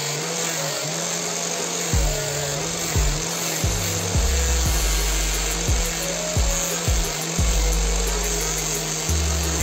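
Angle grinder mounted on a bench running steadily, its abrasive disc grinding a wooden knife handle into shape. Background music with a melody and low drum hits plays over it.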